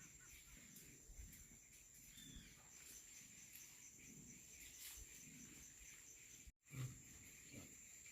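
Faint natural ambience dominated by a steady high-pitched insect trill, such as crickets, with a brief dropout about six and a half seconds in.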